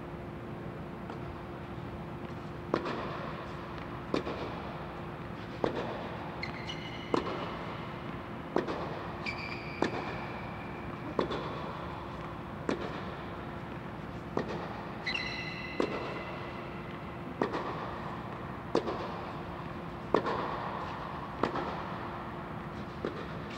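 Tennis rally in an air-supported dome: racket strikes on the ball every second and a half or so, starting about three seconds in, each followed by an echo off the dome. Three short shoe squeaks on the court, and a steady low hum throughout.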